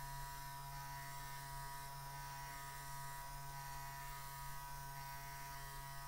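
Small electric motor of an RC dump truck's bed-lift actuator running steadily with an even electric hum, lowering the dump bed.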